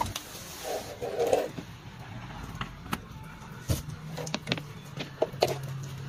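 Scattered clicks and knocks of power cables and plugs being handled during wiring, with a faint low hum underneath.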